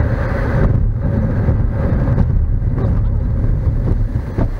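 A car driving on a paved road, heard from inside the car: a steady rumble of engine and tyres, with some wind noise.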